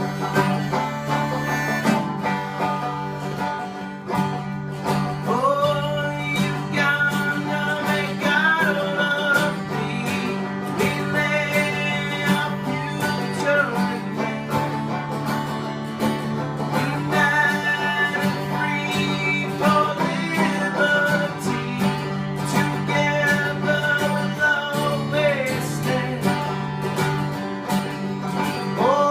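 Instrumental music: plucked strings over a steady low drone, with a melody line that slides between notes, going on without a break.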